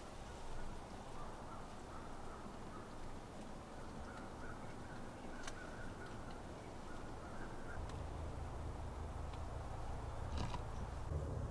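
Quiet woodland background with faint distant bird calls, a few light clicks from handling, and a low hum that comes up in the last few seconds.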